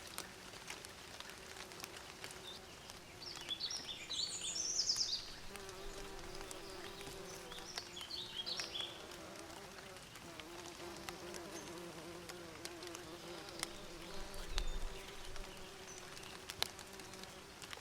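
Bees buzzing, a steady hum that wavers slightly in pitch, with two short spells of high bird chirping about four and eight seconds in.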